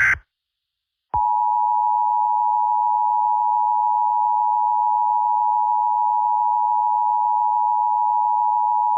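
The end of a SAME digital header burst, a harsh data screech, then about a second in the Emergency Alert System attention signal: the steady two-tone alarm of 853 and 960 Hz sounded together, held unchanged for about eight seconds and cut off sharply. It is the warning tone that precedes a spoken emergency bulletin.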